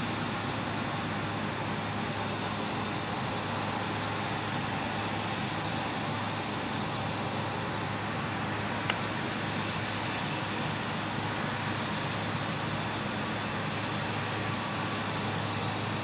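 New Holland CX820 combine harvester running steadily as it cuts wheat: a constant machine drone with a steady low hum. A single short click about nine seconds in.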